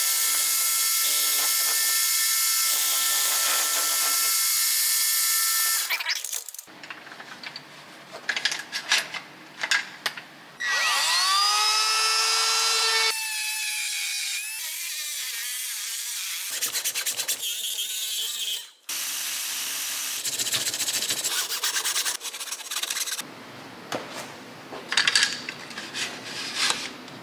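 A milling machine runs steadily for about six seconds, machining an Irwin Quick-Grip bar clamp held in the mill vise. Scattered clicks of handling follow. Then a cordless drill spins up with a rising whine and runs for about two seconds, and the rest is lighter scraping and clicking as the clamp is worked by hand.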